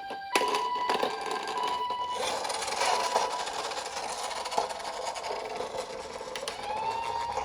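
Toy ambulance's electronic siren playing stepped beeping notes, which stop about two seconds in with a click. A steady mechanical whirring rattle follows, with a short rising tone near the end.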